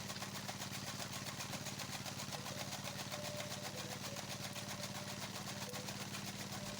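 A small motor running steadily, a low hum with a fast, even pulse.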